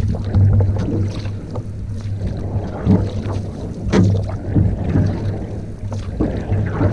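Canoe paddling: irregular splashes and knocks of paddle strokes in the water, over a steady low rumble of wind on the microphone.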